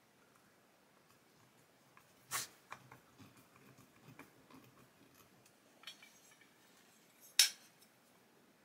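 Small clicks and taps of scale-model engine parts and a screwdriver being handled on a cloth-covered bench, with two sharper clicks, the louder one near the end.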